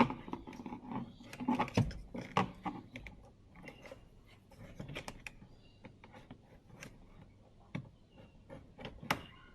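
Scattered clicks and light knocks of hand tools and parts being worked loose from a car door's inner panel, busiest in the first couple of seconds with another sharp click near the end.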